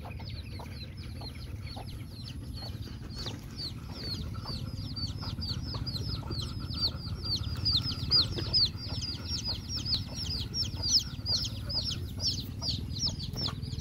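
Chicks peeping: a steady stream of short, high, falling peeps, several a second, growing louder after the first few seconds, over low background noise.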